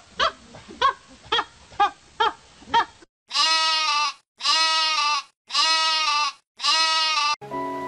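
A run of short animal calls, about two a second, then a goat bleating four times, each bleat about a second long with a short pause between.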